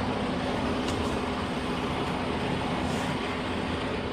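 A vehicle engine running steadily, with a constant low hum and no change in speed.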